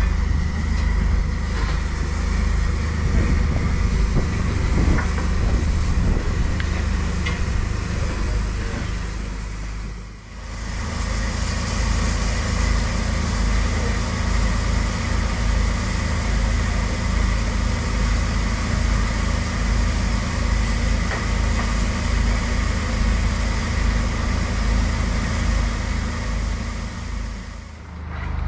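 A standing railway locomotive giving a steady low rumble with a hiss over it. The sound dips briefly about ten seconds in and comes back with more hiss.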